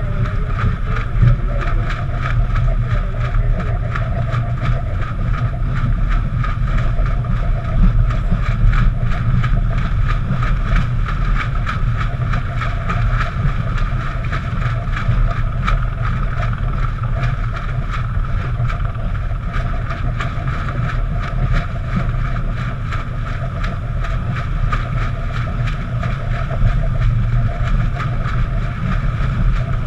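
Wind buffeting the microphone over water rushing along the hull of a racing yacht under sail, a steady rumble and hiss.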